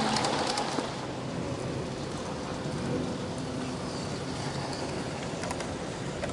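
G-scale garden model trains running on outdoor track: wheel clicks over the rail fade away in the first second as a freight train moves off, then a steady, quieter hiss with a few light clicks near the end as an LGB trolley passes.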